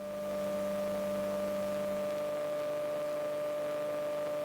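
Steady electrical hum and whine on the aircraft's wired audio feed, made of several fixed tones. It swells in over the first half second after a drop-out, and one lower tone stops about two seconds in.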